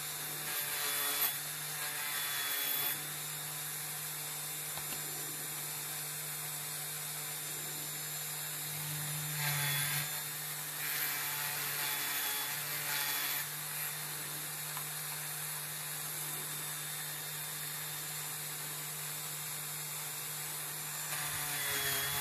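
Dremel-type handheld rotary tool running steadily with a small wire brush wheel, scrubbing old paint off a die-cast metal toy figure: a constant motor hum under a rasping hiss that swells louder a few times.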